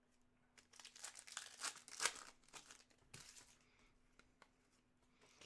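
A trading card pack's wrapper crinkling and tearing as it is opened, with a quick cluster of crackles over about the first three seconds that then fades to faint handling rustle.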